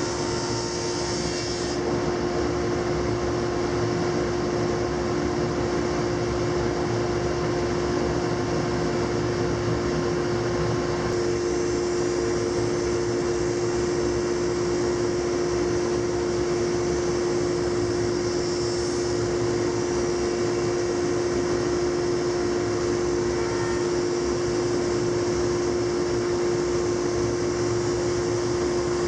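Laguna 25-inch planer with a ShearTec II spiral cutterhead running with a steady hum. A higher hiss drops away about two seconds in.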